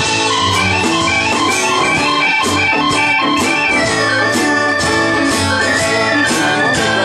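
Live band playing an instrumental passage: a keyboard with an organ sound over electric archtop guitar and upright bass, with a steady beat.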